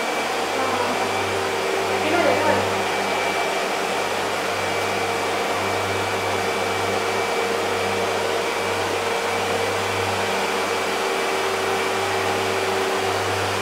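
Vacuum cleaner running steadily as it sucks up the stream of aerosol dust particles through its hose: a continuous rushing whine with a low hum that wavers.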